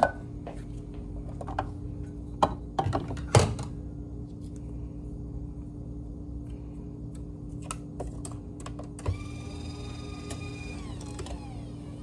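Scattered sharp clicks and knocks over a steady low hum, the loudest cluster between about two and three and a half seconds in. About nine seconds in, a pitched sound with overtones starts, holds, then slides down and fades near eleven seconds.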